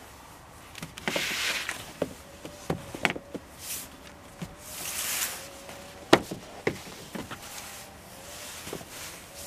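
Flat wooden bed boards being set down and slid into place on a metal pipe frame: knocks and clatters with scraping slides, the sharpest knock about six seconds in.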